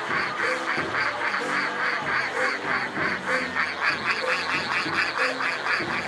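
Folk music played by a passing parade group: a fast, even pulse at about four or five beats a second over a slowly changing tune of held notes, with a nasal, reedy sound.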